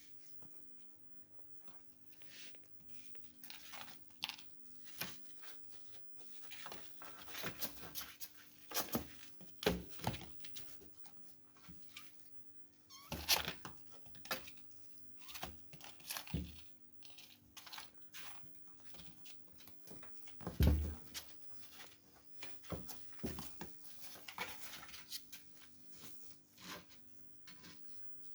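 A kitten moving about, making irregular scratchy rustles and sharp clicks, with a faint steady hum underneath.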